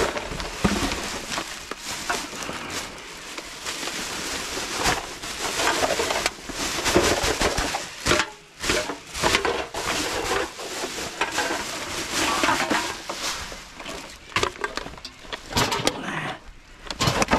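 Plastic rubbish bags rustling and crinkling as they are dragged out and handled, with scattered knocks and clunks of rubbish shifting inside the dumpster.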